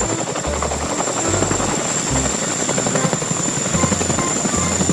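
Boeing CH-47 Chinook tandem-rotor helicopter in a low hover near the ground, its two rotors making a fast, steady chop over a constant high turbine whine.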